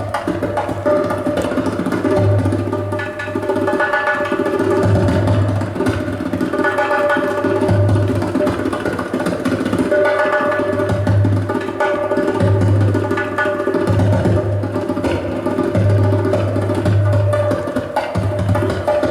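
Live folk-style ensemble music: a double bass repeats a low pattern of notes under held melody lines from accordion and wind, with hand percussion and drums keeping a steady beat.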